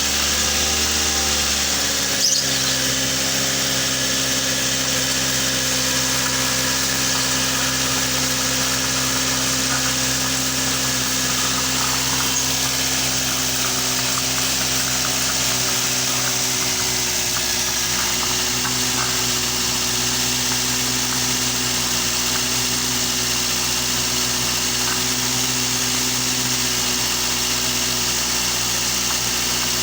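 Toyota Avanza's four-cylinder petrol engine speeding up over the first couple of seconds, with one sharp click about two seconds in, then running at a steady raised speed as a high, even drone.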